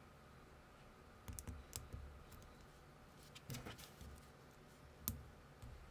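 Faint clicks and taps of small plastic building-toy minifigure parts handled and pressed together by fingers, in a few small clusters, with one sharper click about five seconds in.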